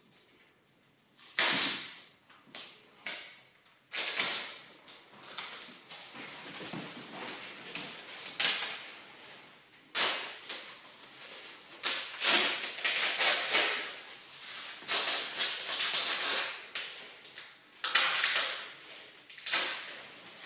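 Adhesive tape being pulled off its roll in repeated strips, a harsh ripping sound each time, while a rolled tatami mat is taped shut for a test cut.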